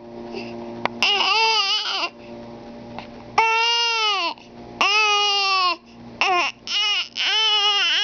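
Baby fussing and crying: drawn-out whiny wails about a second long, then shorter cries coming quicker near the end.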